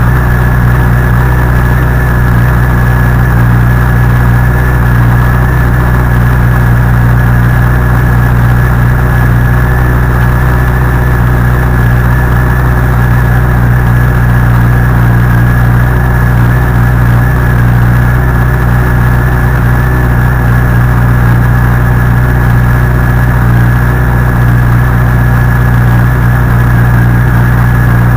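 Honda CBR1100XX inline-four engine idling steadily after a cold start, with an abnormal mechanical noise that the owner suspects comes from a faulty cam chain tensioner.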